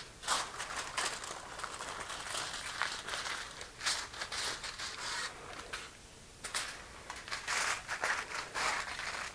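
Aluminum foil crinkling as it is pulled over a baking dish and crimped tightly down around the rim, in irregular crackles with a short lull about six seconds in.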